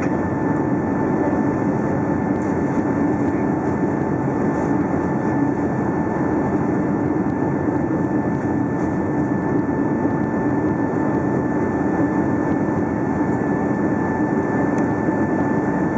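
Steady cabin noise inside a Boeing 757-200 on final approach with flaps extended: the jet engines and rushing air make an even rumble, with two thin steady whine tones above it.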